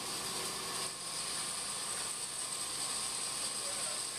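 Bandsaw running steadily with nothing in the cut: an even mechanical whir with a thin, steady high tone.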